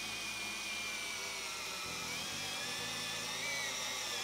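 Power drill with a hex socket driving a self-drilling hex-head screw through steel flat bar: a steady motor whine under load, wavering slightly in pitch. The drill point has passed through the steel and the thread is cutting its way in like a normal screw, the sign of a drill point long enough for the sheet thickness.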